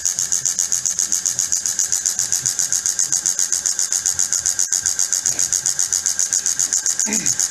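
Timken-type lubricant tester running under load, its electric motor turning the steel test ring against the test block in the oil cup: a steady, high-pitched rhythmic hiss pulsing about nine times a second. A single sharp click comes about halfway through.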